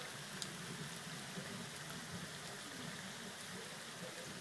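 Steady rain falling, an even hiss of drops, with one sharp tap just under half a second in.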